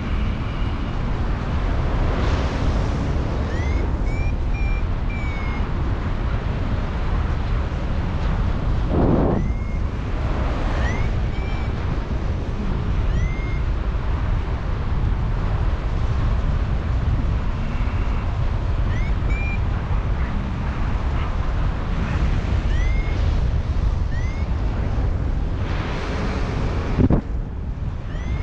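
Strong wind buffeting the microphone during a paraglider flight, with a flight variometer giving short, rising beeps every second or two, the sign that the glider is climbing in lift. There are brief louder gusts about nine seconds in and near the end.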